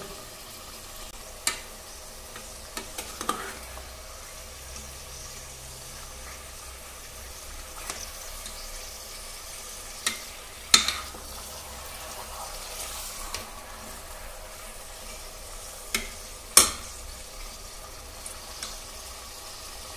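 Mutton pieces frying in oil in an aluminium pressure cooker, a steady low sizzle, while a metal ladle stirs them. The ladle scrapes and knocks against the pot now and then, sharpest about halfway through and again later on.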